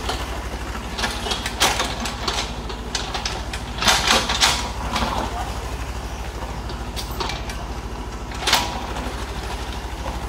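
Hitachi mini excavator's diesel engine running steadily, with several sharp knocks and clacks of stones being moved; the loudest pair comes about four seconds in.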